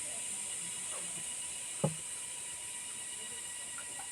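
Quiet room tone: a steady high hiss, with one short knock a little under two seconds in.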